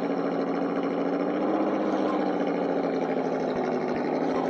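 Brushed electric motor (Holmes Hobbies Trailmaster 550) and gear drivetrain of a 1/8-scale Double E Land Rover Defender RC crawler whining steadily under way, at a fairly even pitch.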